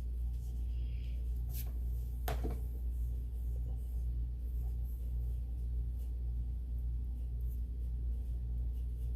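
Steady low hum, with two short clicks about one and a half and two and a half seconds in.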